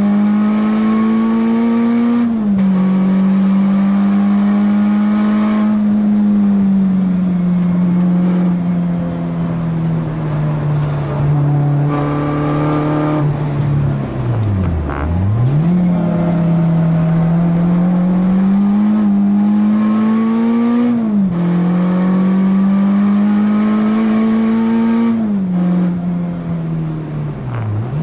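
Renault Clio 2 RS's 2.0-litre four-cylinder engine, heard from inside the cabin, pulling hard round a race track. The revs climb slowly in each gear and drop sharply at upshifts about two seconds in and twice near the end. Around halfway the revs fall steeply and climb straight back.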